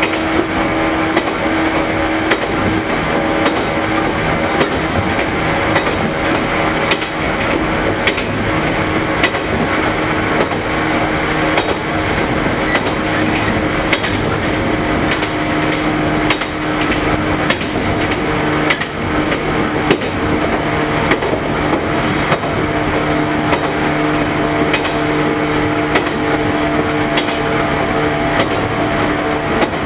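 JNR 115 series electric train's MT54 DC traction motors growling under way, with steady whining tones, a higher tone joining about two-thirds through. Frequent sharp clicks and knocks from the running gear sound over the top.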